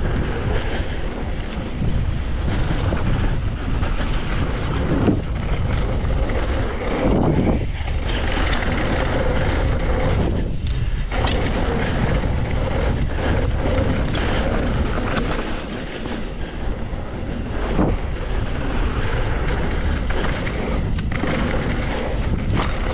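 Steady wind rush on the microphone and tyre noise of a mountain bike riding down a dirt trail, with occasional short knocks and rattles from bumps.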